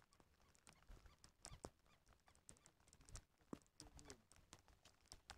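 Near silence with faint, scattered ticks of raindrops striking the camera in heavy rain.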